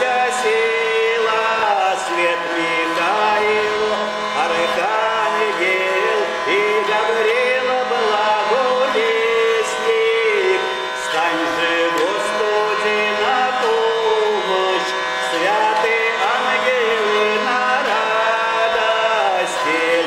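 A man singing a Russian spiritual verse (dukhovny stikh) to his own hurdy-gurdy, the wheel-bowed strings holding a steady drone under his voice.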